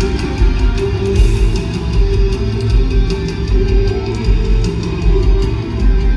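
Loud live rock music: electric guitar over a heavy bass and drum beat, with low bass hits about twice a second.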